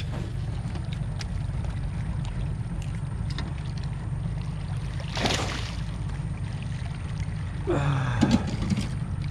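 Steady low rumble on the aluminium boat, with a hooked trairão (wolf fish) splashing at the surface beside the hull about five seconds in and again around eight seconds.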